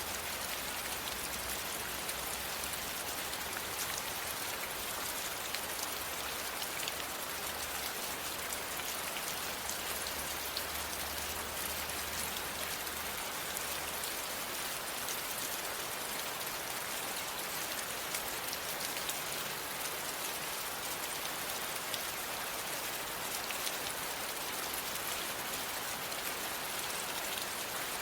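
Steady rain falling, an even hiss flecked with the ticks of single drops landing on a surface. A faint low hum runs underneath for the first half and stops about halfway through.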